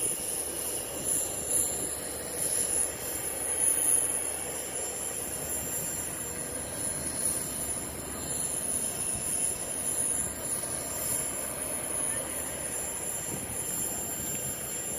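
Steady outdoor background noise with a constant high-pitched whine running through it, a little louder in the first few seconds.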